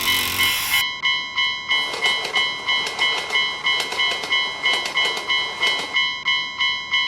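Railroad crossing alarm bell ringing in a steady repeating ding at about two and a half strikes a second. From about two seconds in to about six seconds in, a passing train's rumble and clattering wheels join it.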